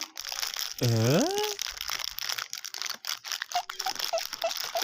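A food packet crinkling and rustling as it is handled, with scattered small crackles. About a second in, a short voice-like sound rises steeply in pitch; near the end come a few quick, faint high chirps.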